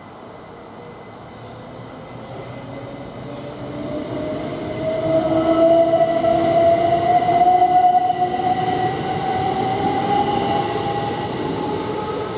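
Southern Class 377 Electrostar electric multiple unit passing close by: a steadily rising electric whine from its traction motors over the rumble of its wheels on the rails, loudest about halfway through.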